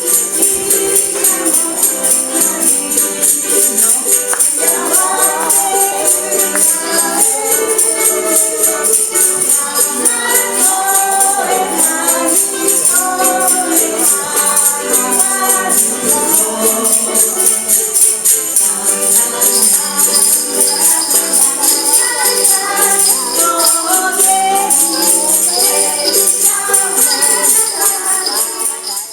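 Ukulele ensemble strumming a brisk rhythm with a tambourine jingling along; a group of voices starts singing about five seconds in.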